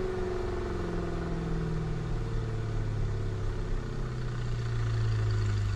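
Jaguar F-TYPE R Coupé's supercharged V8 engine running, its note sliding slowly down in pitch and holding a little louder near the end.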